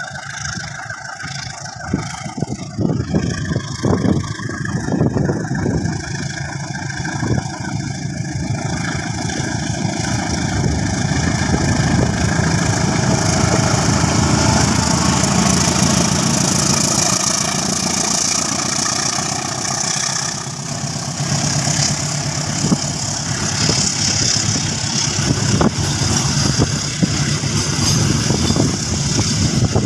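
A KAI CC203 diesel-electric locomotive hauling a passenger train passes at speed. Its engine and wheel noise builds as it draws near and is loudest around the middle, then the coaches roll past with a steady rail rumble and scattered clacks from the wheels.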